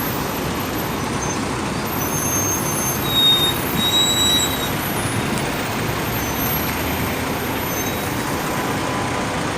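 Busy road traffic with buses passing close by: a steady din of engines and tyres, with a few short high-pitched tones about three to four seconds in.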